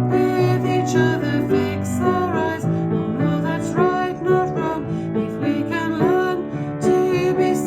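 A song: a singing voice carrying a melody over steady instrumental accompaniment.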